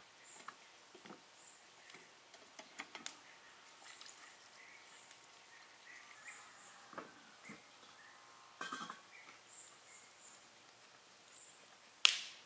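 Faint birds chirping in short repeated calls over quiet ambient sound, with scattered small clicks and knocks. A sharp knock comes near the end.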